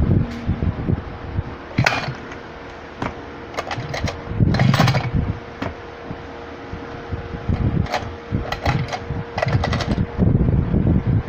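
Two-stroke brush cutter engine drops from a loud run to a low idle right at the start, idling with a faint steady hum, while several knocks and rattles from handling the machine and gusts of wind come through.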